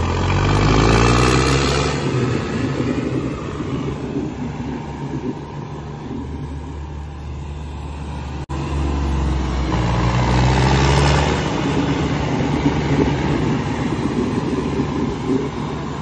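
Tractor diesel engine revved hard twice, its pitch climbing over the first couple of seconds and again at about ten seconds in, with steady running between.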